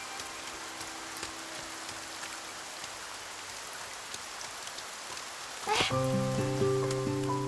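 Steady heavy rain falling on pavement and plants, with soft background music. About six seconds in, a short whoosh, and the music swells louder with long held notes.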